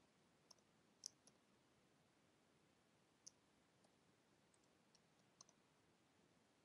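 Faint, scattered keystrokes on a computer keyboard as a numeric code is typed, about nine light clicks over a few seconds against near silence.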